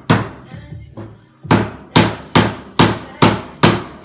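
Mallet striking a pry tool to drive it in between the boards of a wooden pallet. One blow, a pause of about a second and a half, then six steady blows about two a second.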